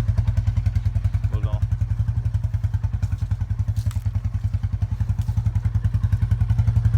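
Small engine chugging in a steady, rapid low pulse of about a dozen beats a second, with a brief knock about a second and a half in.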